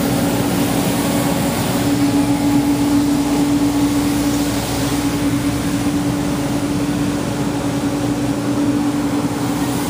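A steady mechanical hum over a constant rush of noise, without a break.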